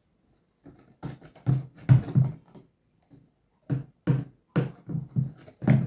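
A man's voice in short, broken bursts, muttered sounds or half-words that are not clear speech.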